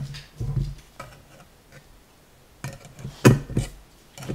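A few light metallic clicks and knocks from handling a valve spring compressor on a cylinder head, the loudest about three seconds in, over a steady low hum.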